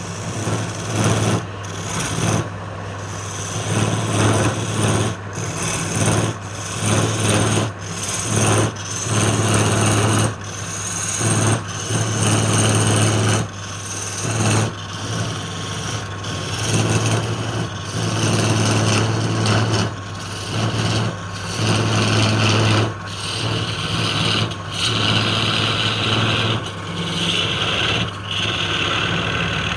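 Wood lathe running with a steady motor hum while a turning tool cuts the spinning wood in short repeated strokes, each a scraping hiss about a second long with brief breaks between.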